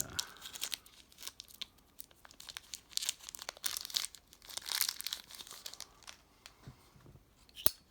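Sealed plastic wrapping being torn open and crinkled by hand: irregular crackling and tearing, busiest in the middle, with one sharp click near the end.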